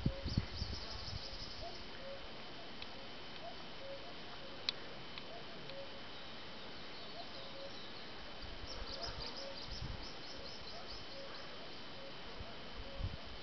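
Wild birds calling on a forested mountainside: one bird repeats a short low note at an even pace, a bit under once a second, while others twitter briefly near the start and again about two-thirds of the way through. A faint steady high whine runs underneath, and there is light wind rumble on the microphone at the start and end.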